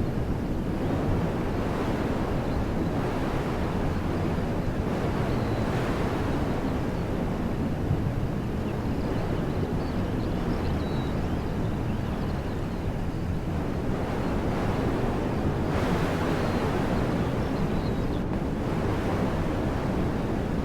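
Wind blowing steadily through woodland trees, a continuous rushing that swells slightly now and then.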